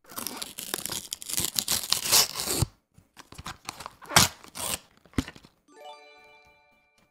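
Plastic clamshell food tray crackling and clicking as it is handled close to the microphone: dense crinkling for the first couple of seconds, then a few sharp clicks. Near the end a short electronic chime sounds: a stream new-subscriber alert.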